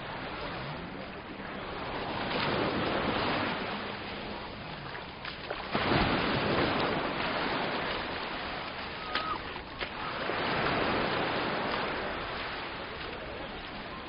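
Sea waves breaking on the shore and washing back, swelling and ebbing, loudest about six seconds in and swelling again near eleven seconds.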